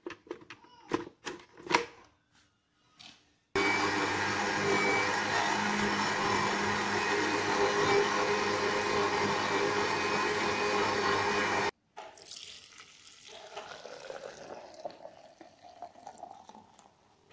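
A few sharp clicks and knocks, then a Panasonic MX-900M blender runs steadily for about eight seconds, pureeing gotu kola leaves with water, and stops suddenly. After that the green juice is poured, splashing into a cloth strainer.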